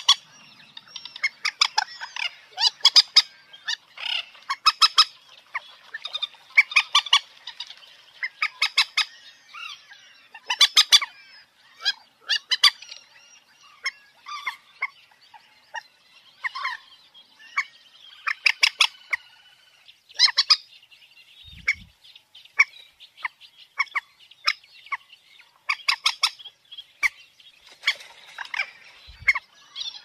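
Moorhen calling: repeated quick runs of short, sharp clucking notes, coming in bursts every second or two.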